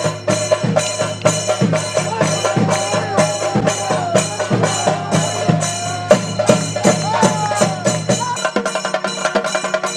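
Kerala temple percussion, thappu and chenda drums, beating a fast steady rhythm of about four strokes a second under a wavering tune. The sound changes abruptly about eight and a half seconds in, as the deepest part drops away.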